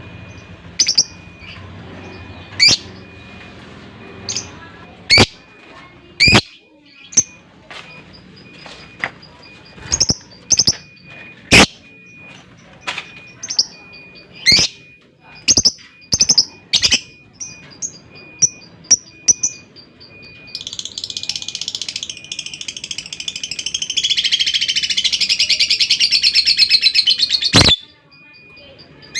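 Lovebird calling: sharp, shrill chirps repeated irregularly for about twenty seconds, then a long, rapid chattering trill, the lovebird's 'ngekek', lasting about seven seconds before it stops abruptly.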